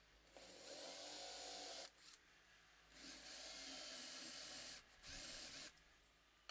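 A small handheld power tool runs twice: a short run of about a second and a half, then a longer one of nearly three seconds, each a steady hiss with a faint high whine.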